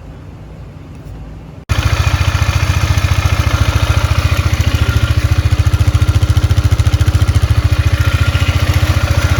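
After a brief quiet stretch, the Polaris Magnum 500 ATV's single-cylinder four-stroke engine cuts in, idling steadily with an even, rapid putt.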